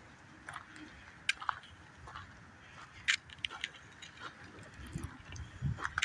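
Footsteps crunching on a gravel path, irregular and sharp, with a brief low rumble of wind on the microphone about five seconds in.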